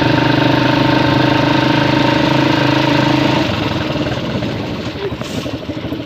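Motorcycle engine running at a steady idle, turning rougher and uneven about three and a half seconds in.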